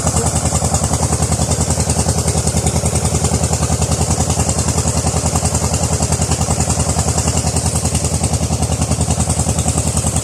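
A small engine idling steadily, with an even low chugging of about a dozen beats a second, under a steady high hiss.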